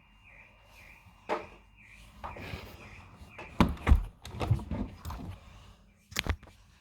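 Faint car alarm siren, a high warbling tone that dips about twice a second, cutting off about three and a half seconds in. Irregular knocks and thuds, the loudest about four seconds in and again near the end.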